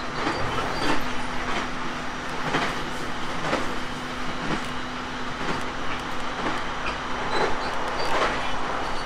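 E721 series 500 sub-series electric train running along the line, its wheels clacking over rail joints about once a second over a steady hum.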